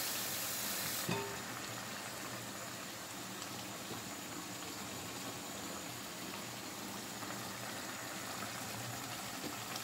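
Steady bubbling and sizzling of food cooking on a stovetop: ground-beef picadillo in tomato sauce simmering in a frying pan, beside a lidded pot of potatoes at a rolling boil. The hiss is a little brighter in the first second, then settles.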